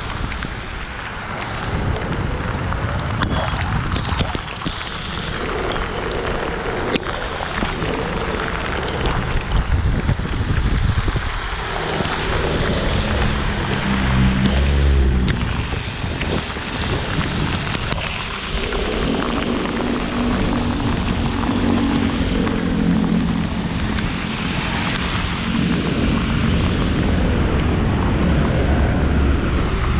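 Wind buffeting the microphone and heavy rain, with tyres hissing over wet road, recorded while riding an electric scooter through a downpour. A low hum of passing traffic rises twice, around the middle and again later.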